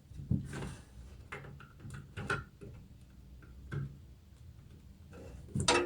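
Scattered light clicks and taps from hands handling parts and cables inside a small desktop PC case, with a louder knock near the end.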